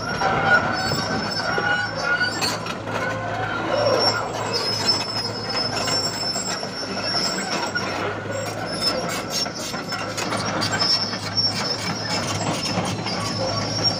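Caterpillar 320GC hydraulic excavator running and working, its engine humming steadily under high, thin whining tones, with frequent short metallic knocks and rattles.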